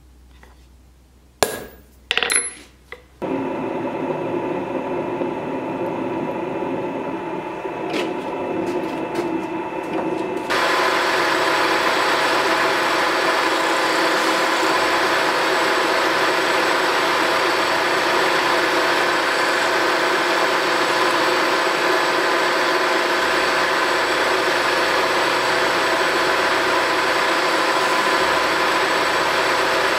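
A few sharp metal taps, then a milling machine starts and runs steadily with a fixed whine. About ten seconds in, a small end mill begins cutting a slot into a steel block clamped in the vise, and the sound turns louder and fuller, a steady cutting noise over the motor.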